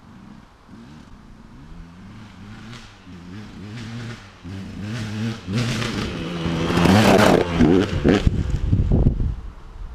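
KTM 200 EXC two-stroke enduro dirt bike with an FMF Gnarly expansion pipe and KTM Powerparts silencer, approaching and getting steadily louder, its revs rising and falling as the rider works the throttle. It passes close by about seven seconds in with a loud rush of noise, then moves off, the engine falling away sharply near the end.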